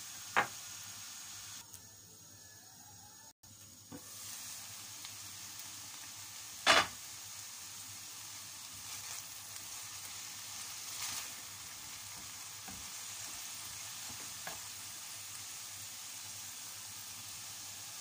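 Chicken pieces sizzling in a pan of hot oil and juices while a wooden spatula stirs them. A few sharp knocks stand out, the loudest about seven seconds in.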